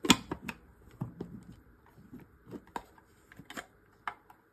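Hard plastic parts of a brush-cleaning device clacking and knocking as they are handled and fitted together, in irregular clicks with the loudest right at the start.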